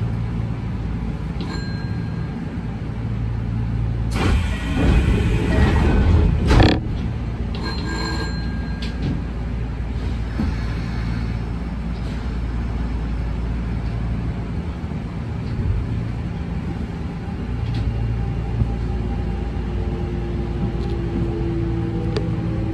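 Kintetsu electric train running, heard from on board: a steady low hum of motors and wheels on rail, with a louder rushing passage about four to seven seconds in. Near the end a steady motor tone comes in and begins to rise.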